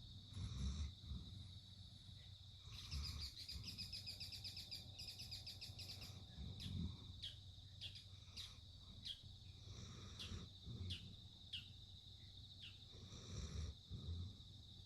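Puppy snoring softly, a low breath every three to four seconds. Over it a steady high-pitched whine, a few seconds of rapid high chirping, then a string of short falling squeaks.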